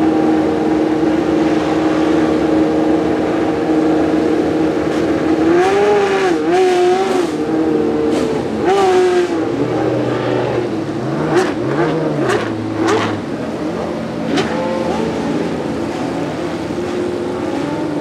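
3.5-litre Judd V8 engine of a Leyton House March Formula 1 car running at a high, steady idle, then blipped several times so the pitch quickly rises and falls. A second, deeper engine note joins for a few seconds in the middle.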